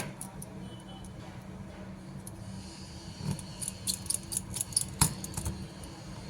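Small sharp clicks and taps: one at the start, then a quick run of them from about three seconds in, over a steady low hum.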